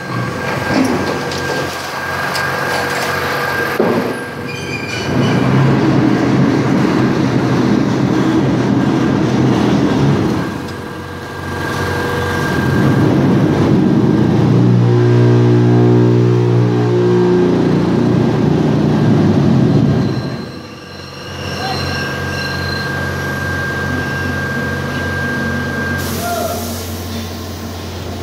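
Machinery running on a concrete block production line: a loud rumbling, clattering noise that dips briefly three times, with a pitched motor hum rising out of it for a couple of seconds past the middle.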